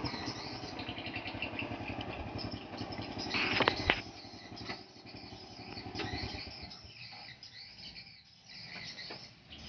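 Stick (electrode) arc welder crackling and sizzling as tack welds are struck on hollow steel tube joints. The crackle is loudest in a burst just before four seconds in, then goes on quieter and broken.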